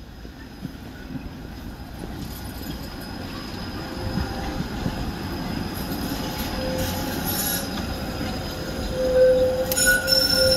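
Tram rolling closer and louder over a rumble, its steel wheels squealing on the rails in steady high tones that are loudest near the end.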